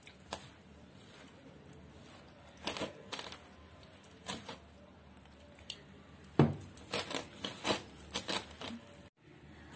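A hand mixing flour, curd and water into dough in a steel bowl: scattered short rustling, squishing sounds, with one louder thump about six and a half seconds in.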